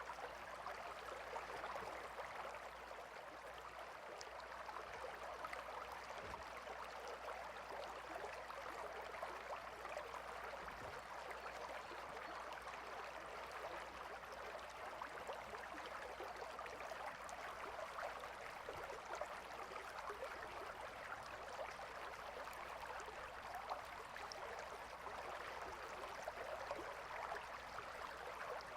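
Gentle river flowing steadily: an even rushing and babbling of water.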